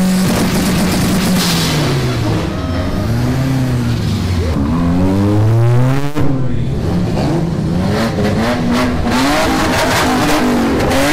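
Modified car engines revving as the cars pull away, the pitch rising and falling several times. After a sudden change about six seconds in, another engine revs with a rapid crackle of exhaust pops.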